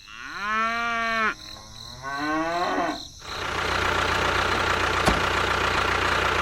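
A cow mooing twice, one long level moo and then a shorter rising one. From about three seconds in, a steady engine-like running noise takes over, with a single sharp click near the end.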